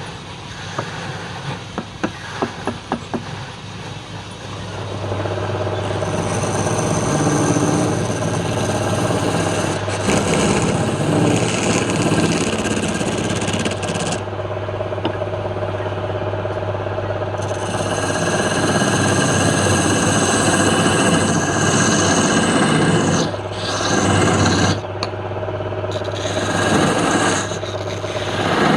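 A few light taps, then about five seconds in a wood lathe's motor hums steadily while a tool scrapes against the spinning wood, the scraping swelling and easing off several times.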